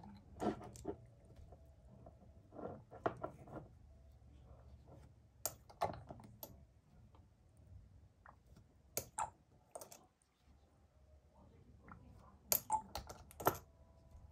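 Light clicks and taps in small clusters every few seconds, from a plastic pan watercolour set and its brush being handled on a table.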